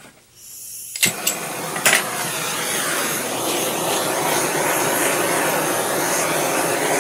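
Handheld propane blowtorch being lit: gas starts hissing, a few sharp clicks about a second in, then the flame burns with a steady loud rushing hiss.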